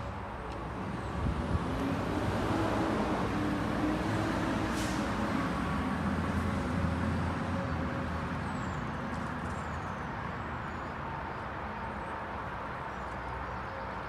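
A motor vehicle passing on a nearby road: its engine and tyre noise swells over the first couple of seconds, holds, then fades away over the next several seconds.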